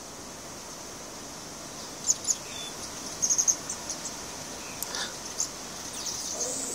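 Steady high-pitched insect chorus, with short, sharp high chirps breaking in: two about two seconds in, a quick run of four a second later, and a few more near five seconds.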